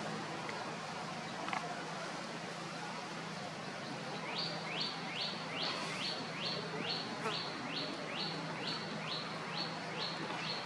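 A bird calling a fast, even series of short descending whistled notes, about three a second, starting about four seconds in, over a steady background hiss.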